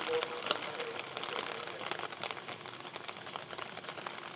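Steady rain falling, with many separate drops striking wet surfaces as quick sharp ticks.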